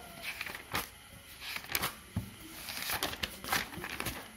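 Pages of a paperback book being turned: a string of short, irregular paper rustles and flaps.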